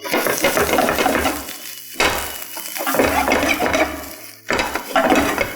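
A spatula scraping and stirring spices, grated coconut and curry leaves as they fry in hot coconut oil in a pan, in three long strokes.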